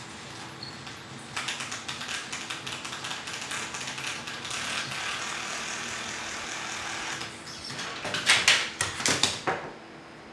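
Fine-toothed laser-cut acrylic gears of a mechanical planetarium turning: a fast, dense clicking that starts about a second in, gets louder in a burst of clacks near the end, then stops.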